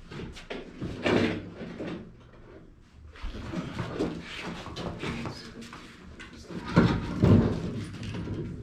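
Clunks, knocks and scraping from a heavy pool table being lifted and moved by hand. The loudest thumps come about a second in and again near the end.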